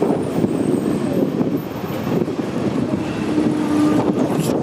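Hong Kong double-decker tram running along its street rails, a steady rumble and rattle heard from the top deck.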